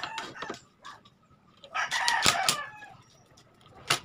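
A rooster crowing once, about two seconds in. A few sharp clicks and knocks come near the start and at the end.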